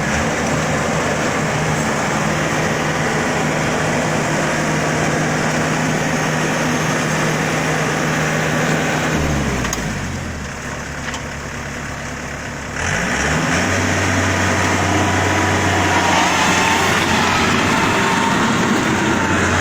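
Yanmar AW82 combine harvester's diesel engine running steadily. About nine seconds in it drops to a lower speed and goes quieter, then about three seconds later it revs back up and runs on steadily.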